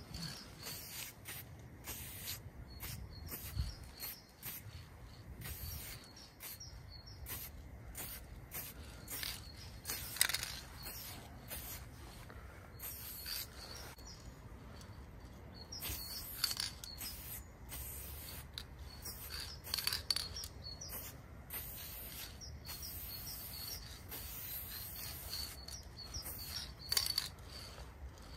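Aerosol spray-paint can hissing in many short, irregular bursts as quick strokes are sprayed. Birds chirp faintly in the background.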